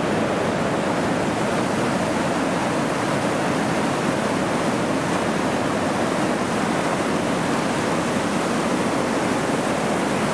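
Floodwater pouring through a dam and churning into whitewater rapids: a steady, unbroken rush of water.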